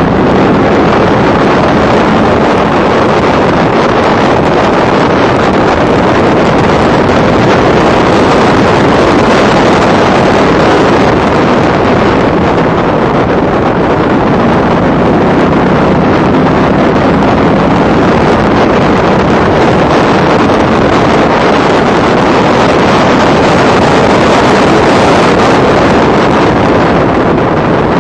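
Onboard sound of a race car at speed: the engine running hard under a heavy wash of wind noise on the microphone, loud and steady.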